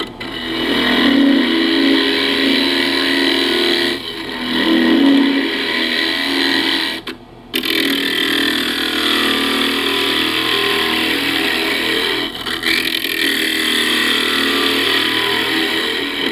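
A gouge cutting into a spinning ash blank on a wood lathe, hollowing out the inside of a small bowl. The cutting noise is loud and continuous, breaks off briefly about seven seconds in as the tool comes away, and dips a couple of other times.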